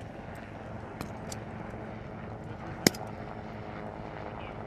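A single sharp rifle shot about three seconds in, over a steady low engine drone.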